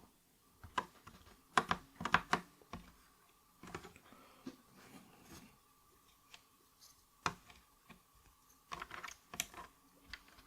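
Keys on an 8BitDo Retro Mechanical Keyboard M Edition pressed singly and in small irregular groups: sparse clacks with pauses between them, and a quicker run near the end.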